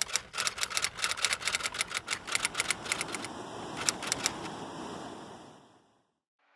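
Typewriter keys clacking in a rapid run of keystrokes as a title is typed out, stopping about four seconds in, with a background hiss that fades away shortly after.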